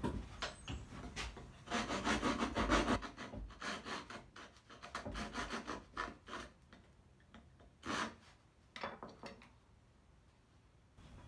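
Hand file rasping over cured body filler on a truck dash pad, with a quick run of back-and-forth strokes about two seconds in, then scattered single scrapes and rubs that die away near the end.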